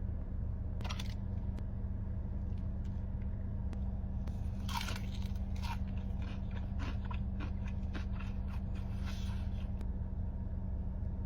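Close-miked crunchy bites of food, about a second in and again around five seconds, followed by crackling, crunchy chewing. A steady low hum runs underneath.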